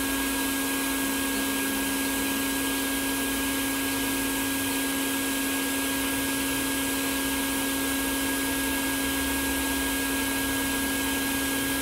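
Honeybee swarm buzzing at close range: a steady, unbroken drone pitched low, with no pauses.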